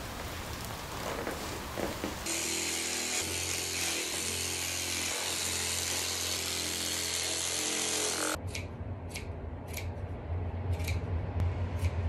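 Electric rug carving tool running steadily over tufted pile for about six seconds, a motor hum with a bright hiss of the yarn being sheared. After it stops comes a series of short sharp clicks about twice a second.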